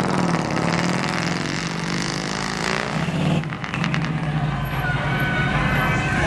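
A first-generation Chevrolet Camaro convertible's engine running at a steady low note as the car pulls away and drives off.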